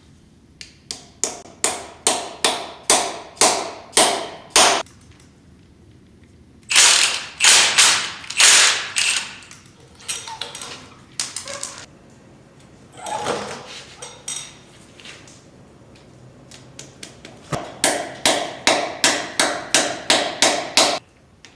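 Hand tool working a rusted exhaust manifold stud loose: runs of sharp metal clicks, about three a second, broken by pauses.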